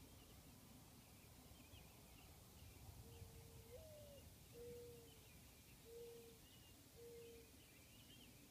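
Faint mourning dove song: starting about three seconds in, one long coo that swoops up and back down, then three level coos about a second apart. Small birds chirp faintly throughout.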